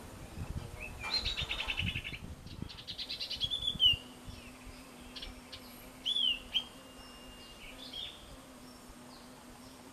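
Sirtu songbirds calling: a fast rattling trill about a second in, then chirps and short falling whistles, the loudest just before four seconds in, with a few more whistles later. A faint steady hum runs underneath.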